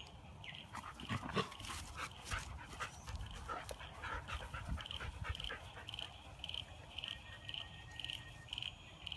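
Siberian husky dogs play-fighting, a puppy with its brother and mother: a run of scuffles and sharp clicks in the first few seconds, then a soft sound repeating about twice a second.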